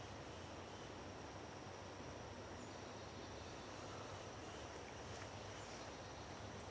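Quiet woodland ambience: a faint, steady background hiss with a thin, high, unbroken insect drone.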